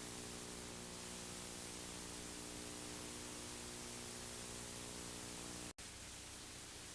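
Steady hiss of the recording's noise floor with a low electrical hum made of several steady tones, and no other sound; the signal cuts out for a split second near the end.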